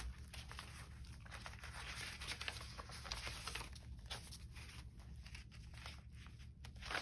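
Paper rustling as a pile of papers and printed images is leafed through, in short, irregular crinkles and soft taps.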